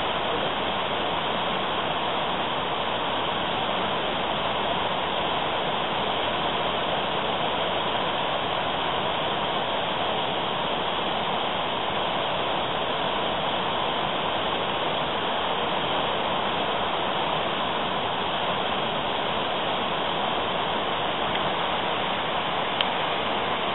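Fast river water rushing steadily through a standing wave, a continuous even wash of whitewater.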